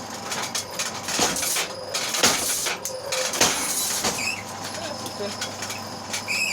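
Homemade electric-motor power hammer, driven through a tire reduction wheel, running with a steady motor hum while its ram strikes slowly and hard: four heavy blows about a second apart, then short squeaks near the end.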